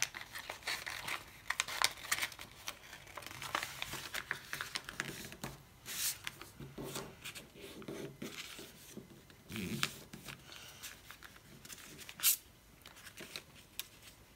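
A4 paper rustling and crinkling as it is folded and creased by hand, in irregular bursts, with one sharper crackle about twelve seconds in.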